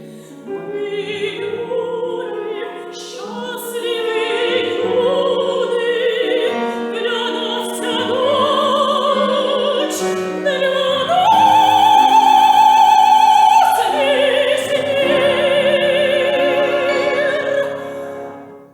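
Operatic soprano singing with piano accompaniment, her voice rising to a long high note with vibrato held for a few seconds, after which the phrase goes on and the music ends near the close.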